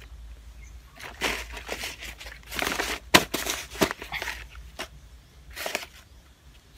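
Hands scooping and pressing loose potting soil into a plastic nursery pot: irregular crumbly scraping and rustling, with a sharp click about three seconds in.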